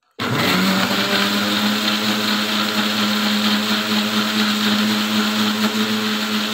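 Electric mixer-grinder (mixie) blender switching on abruptly just after the start and running at a steady speed with a constant hum and whirr, blending carrot pieces, orange segments and water into juice.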